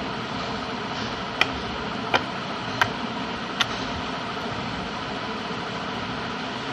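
Slime being handled, giving four sharp popping clicks less than a second apart in the first half, over a steady rushing background noise.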